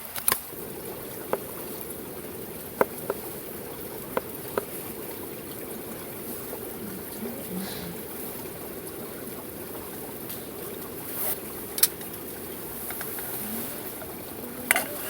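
Scattered light clicks and knocks of kitchen utensils while a shiitake mushroom is being prepared, over a steady rushing background.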